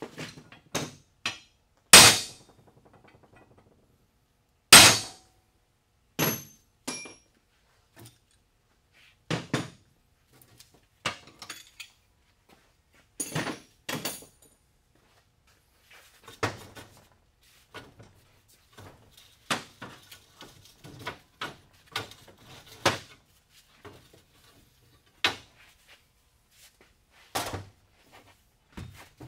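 Irregular metal clanks and knocks from steel leaf-spring leaves and hand tools being handled on a workbench while a leaf spring is taken apart. The two loudest clanks come about two and five seconds in, and the first rings on briefly.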